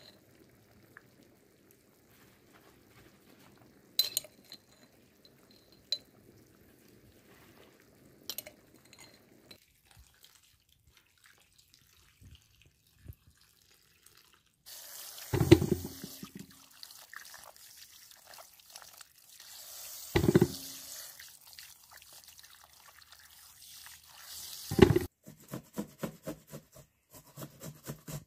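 Water running and splashing, with a few sharp clinks in the first seconds and three loud thuds or splashes during the running water.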